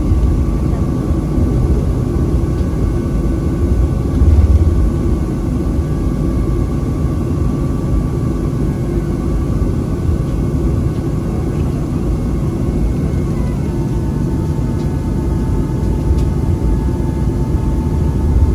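Boeing 737-400's trailing-edge flap drive whining in a steady tone over the low rumble of the engines at taxi; about thirteen seconds in the whine slides down in pitch and holds at the lower note. A low thump about four seconds in.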